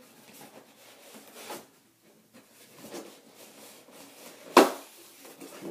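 A styrofoam packing insert and cardboard box being handled: scattered light scrapes and rustles, with one sharp knock near the end.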